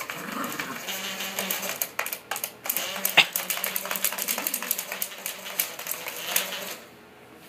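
Toy poodle attacking a plastic Operation game board, its claws and teeth scratching and clattering: a dense run of rapid clicks and rattles that stops suddenly near the end.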